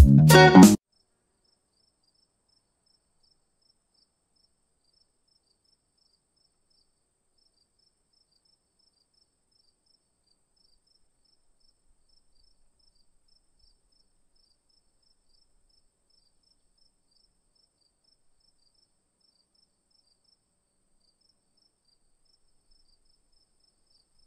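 Background music cuts off abruptly under a second in, leaving near silence with faint, high chirps repeating about three times a second, paused now and then.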